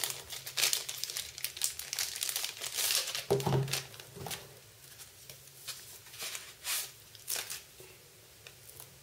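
Clear plastic bag crinkling and rustling as a phone pouch is pulled out of it, with a soft thump a little over three seconds in. After that come only occasional fainter rustles as the pouch is handled.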